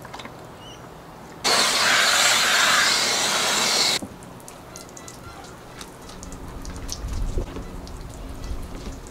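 Water gushing from a hose into a plastic wash bucket, a loud steady rush that starts and stops abruptly; after it, quieter wet sponge scrubbing on the windscreen with small scattered clicks.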